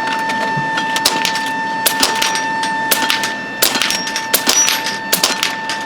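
Two air rifles firing fast in a head-to-head speed race: irregular sharp cracks of shots and pellet hits, two to three a second. A steady high tone sounds underneath throughout.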